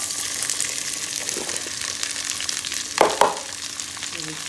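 Chopped okra sizzling as it drops into hot mustard oil in a kadhai, a loud, even frying hiss. About three seconds in comes a short, louder clatter.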